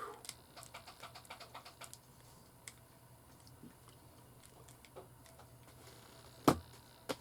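Plastic Rubik's Cube being turned by hand: a quick run of small clicks over the first two seconds, then scattered clicks, and one sharp louder click near the end.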